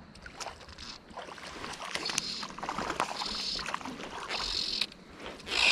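A hooked fish splashing at the surface as it is played in on a fly rod, with the click of a fly reel sounding in short buzzes about once a second.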